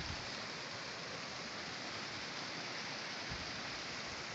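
A small stream running over rocks, a steady rushing hiss of water. A low rumble joins about three seconds in.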